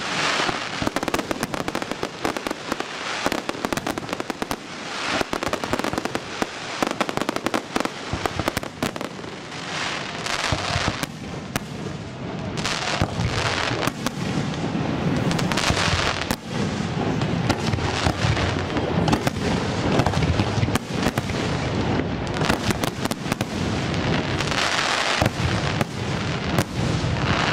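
Aerial firework shells bursting in quick succession: a dense, unbroken run of bangs and crackling glitter.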